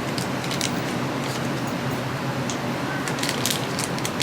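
Coquí frogs calling against a steady background hiss, with scattered short high chirps and one faint rising chirp about three seconds in.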